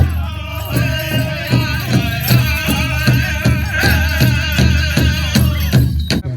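Pow wow drum group singing over a large hand drum struck in a steady beat, about three beats a second. The song cuts off suddenly just before the end.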